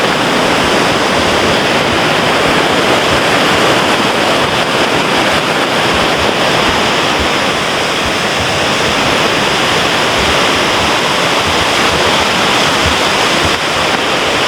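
Creek water rushing steadily and loudly, a constant even roar with no break.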